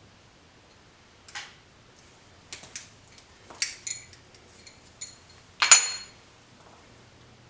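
Small metal parts or tools being handled, clinking and knocking several times at irregular moments; the loudest is a clatter with a short metallic ring near six seconds in.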